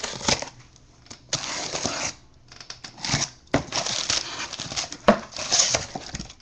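Cardboard shipping case being opened by hand: flaps dragged and packing paper crinkled in several stretches of rustling and tearing, with a few sharp knocks against the box.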